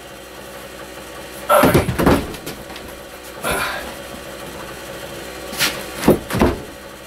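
Wooden wall cabinet of plywood and pine bumping and knocking against the wooden ceiling framing as it is lifted and pushed into place. A cluster of bumps comes about a second and a half in, and two sharp knocks come near the end.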